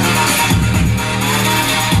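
Electronic dance music with a heavy, pulsing bass beat.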